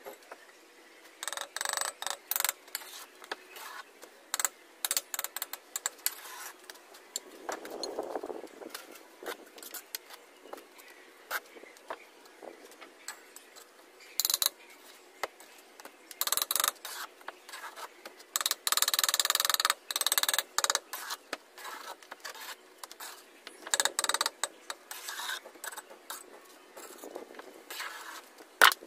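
Bricklaying by hand: a steel trowel scraping and tapping mortar and hollow clay bricks in irregular, sharp scrapes and clicks. A longer scrape comes about two-thirds of the way through, and a sharp knock comes near the end.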